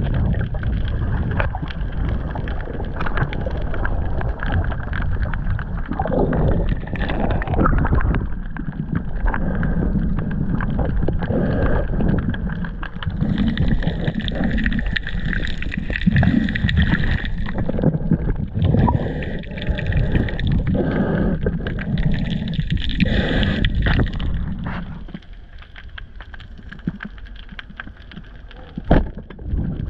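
Muffled rushing and gurgling of water heard through an action camera's underwater housing while diving, with scattered knocks. It turns brighter and hissier for a stretch in the middle and grows quieter near the end.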